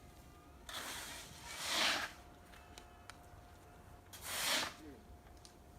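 Snow being dug out of a snow pile: two scraping, crunching scoops, the first longer and louder, the second about two seconds later.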